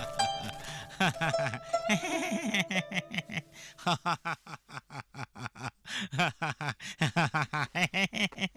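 A cartoon character laughing in rapid, repeated ha-ha bursts, several a second. Plucked zither music fades out over the first few seconds.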